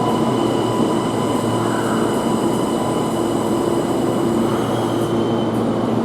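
Kintetsu 80000 series Hinotori limited express electric train at the platform as it arrives, a steady rumble of wheels and running gear with several steady tones held through it.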